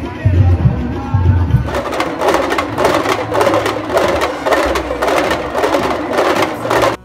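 Procession drum troupe playing in the street: deep drumbeats in a slow rhythm, then from about two seconds in a loud, fast, dense beating of drums and hand cymbals.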